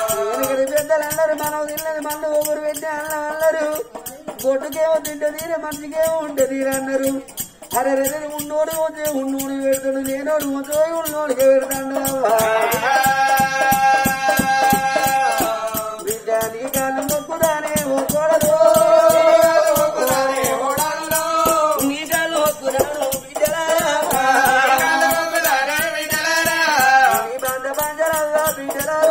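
Oggu Katha folk singing: a voice sings a slow melody with long held, wavering notes over a fast, steady shaken rattle.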